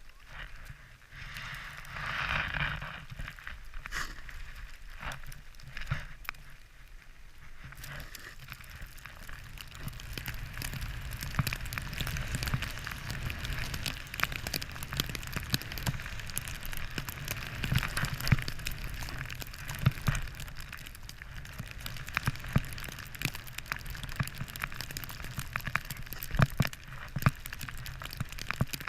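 Crackling hiss of sliding over snow on a ski run, with scattered sharp clicks and a low wind rumble on the microphone. The sound is patchy at first and turns steady and dense about eight seconds in.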